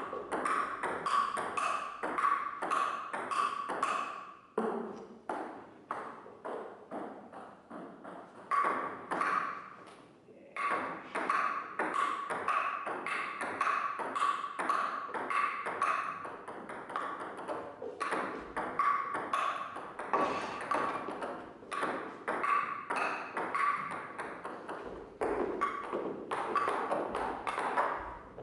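Rapid, irregular pinging taps, many a second, each with a short ringing tone, broken by a few brief pauses.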